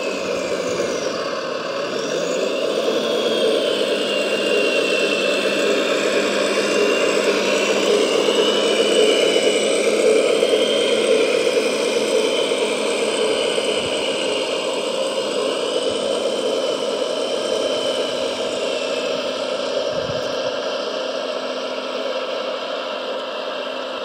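Electric gear motors and drivetrain of a large steel RC model Volvo A45G dump truck whirring steadily. A high whine drifts up and down in pitch as the speed changes. It grows louder over the first several seconds, then eases off slightly.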